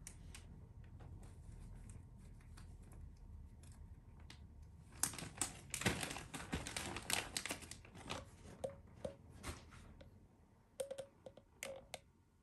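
Plastic treat packet crinkling and rustling in the hands: scattered faint crackles, then a louder run of crinkling from about five seconds in that lasts several seconds, and a few short crinkles near the end.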